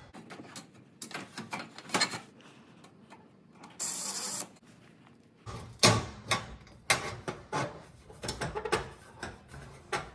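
Clicks, knocks and light metal clatter of a screw being driven and a sheet-metal range panel being fitted into place, with a brief hiss about four seconds in.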